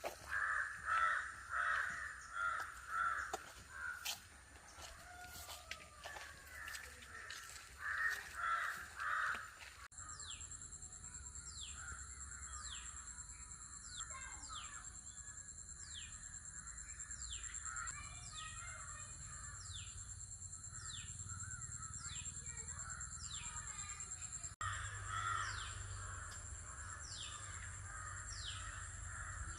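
Crows cawing in runs of several calls for the first ten seconds. After that a steady high hiss sets in, with a bird repeating a short falling whistle about once a second.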